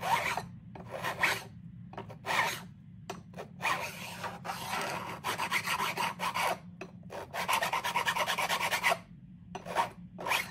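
A metal file rasping along the edge of a guitar fretboard, filing the protruding ends of stainless steel frets flush. Spaced strokes at first, then a quick run of short strokes about three-quarters through, a brief stop and one more stroke near the end.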